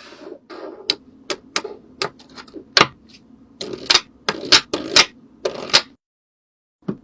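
Quick irregular taps and clicks of small objects being handled, with short scratchy rustles between them; it cuts off suddenly about a second before the end.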